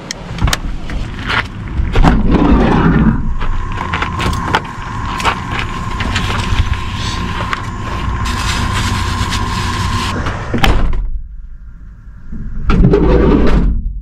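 Knocks and clicks of someone shifting in a van's driver seat and climbing out through the open driver door, over a low rumble. A steady electronic tone sounds from about three seconds in until about ten seconds in.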